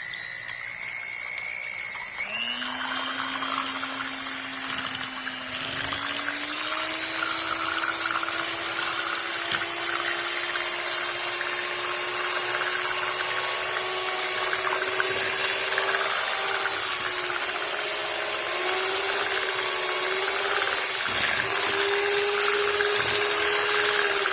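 JIOJIOY 5-speed electric hand mixer running, its beaters working cookie dough batter. The motor whine steps up in pitch about two seconds in and again around six seconds, then creeps slowly higher.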